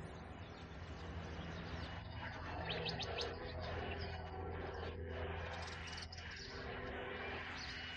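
Birds chirping over a steady low hum.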